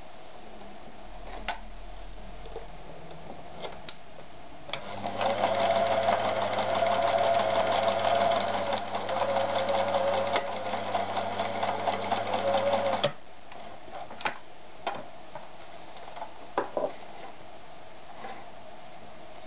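Privileg TopStar 796 Super Automatic sewing machine running for about eight seconds, from about five seconds in, with a steady motor hum under a fast, even clatter of the needle mechanism, then stopping abruptly. A few faint clicks before and after.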